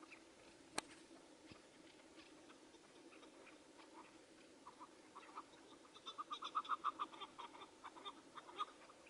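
Chukar partridge calling: faint scattered short notes, then from about six seconds in a fast run of short, clucking notes. A single sharp click about a second in.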